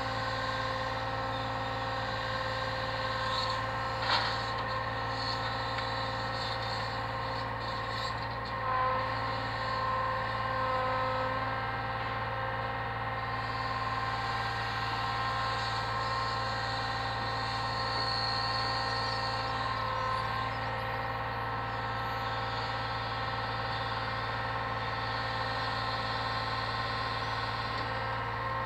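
Brick lorry's engine running steadily to power its loader crane's hydraulics while the crane lifts packs of bricks, with a steady whine over a low hum. The whine wavers briefly around nine to eleven seconds in, and there is a single sharp click about four seconds in.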